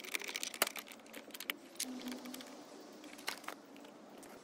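Hands handling the plastic housing of a lawn edger and pulling a cardboard guard off its blade: a run of light clicks and knocks with some rustling, the sharpest knock about two-thirds of a second in and a few more a little after three seconds.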